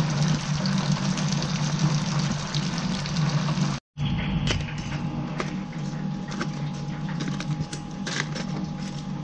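Chicken pieces deep-frying in a commercial fryer: hot oil sizzling and crackling over a steady low hum. After a sudden cut about four seconds in, the sizzle drops away and metal tongs click as fried chicken is packed into a paper takeout box, over the same hum and a faint steady high tone.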